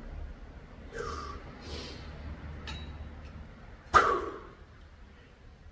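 A man breathing hard through dumbbell lateral raises: short puffs of breath about one and two seconds in, then a sudden loud exhaled grunt about four seconds in.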